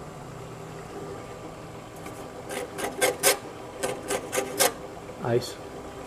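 About eight quick scraping strokes in two short runs, rubbing at the frost on a GE Monitor Top refrigerator's evaporator, over the steady hum of its running compressor.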